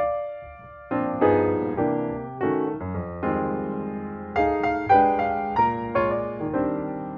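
Background music: piano or electric piano playing a melody over chords, notes struck about twice a second with a short pause about a second in.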